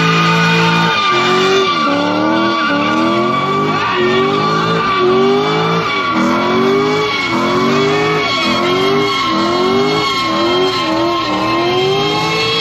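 C5 Corvette's V8 revving hard in repeated climbs, each dropping back about every 0.7 seconds, with a steady high tire squeal over it: a burnout attempt.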